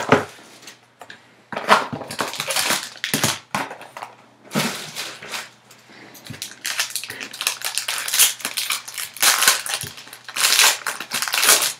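Clear plastic trading-card pack wrapper crinkling and tearing as it is pulled open by hand, in short crackly bursts that grow busier over the last five seconds.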